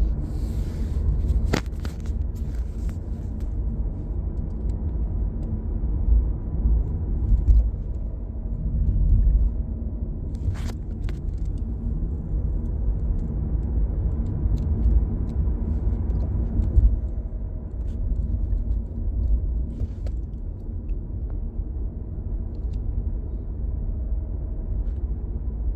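A 2019 Hyundai Ioniq Electric (28 kWh) heard from the car: a steady low rumble, with faint whines gliding up and down, the weird noise that the owner guesses comes from the electric motor. A sharp click about a second and a half in.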